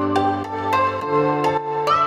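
Gentle new-age-style background music with held chords over a sustained bass note; the bass and chords change about a second in.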